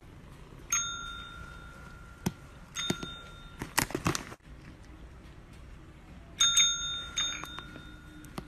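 A small dome-shaped pet call bell, the kind with a push button on top, rung four times by a kitten's paw. Each press gives a bright ding that rings on and fades, a couple of seconds apart, with a short rattling knock about halfway through.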